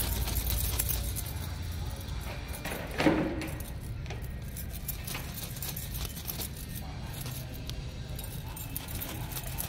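Thin plastic bag rustling and crinkling in quick irregular crackles as it is dangled and batted about, with one short louder sound about three seconds in.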